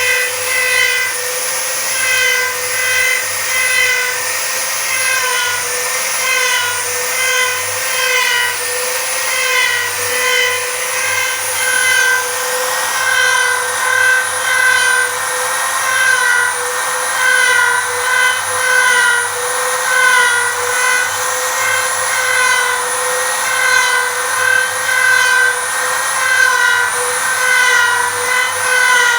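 CNC router spindle running with a steady high-pitched whine while cutting a 3D carving into wood, its upper tones fluttering rapidly as the bit works.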